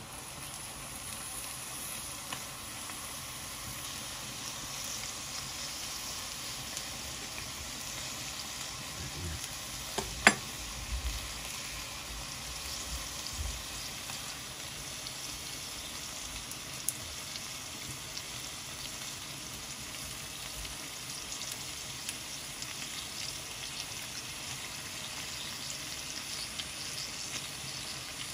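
Onions frying in hot oil in a kazan, a steady sizzle. About ten seconds in there is one sharp clank with a short ring, then a few softer knocks.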